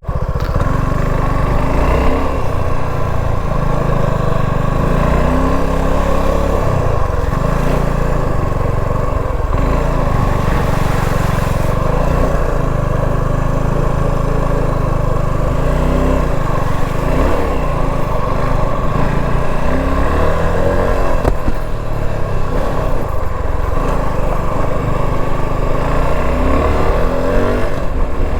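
Motorcycle engine ridden over a dirt track, its revs climbing and dropping again and again as the throttle is worked on and off.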